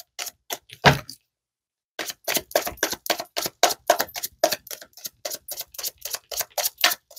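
Tarot cards being shuffled by hand: a few light card snaps, a pause of about a second, then a quick steady run of snaps at about five a second.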